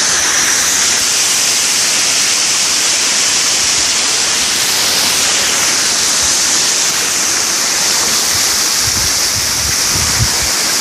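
Waterfall water pouring and splashing: a steady, loud rush heard close up, with a few low bumps near the end.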